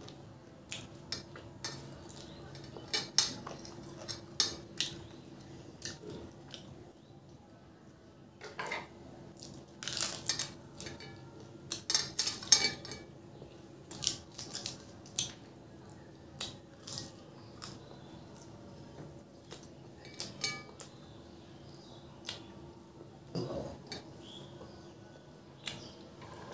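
Close-up eating sounds of a person eating by hand: irregular wet smacks and clicks of chewing, with fingers scraping and tapping on a plate to gather the last of the food. A faint steady hum lies underneath.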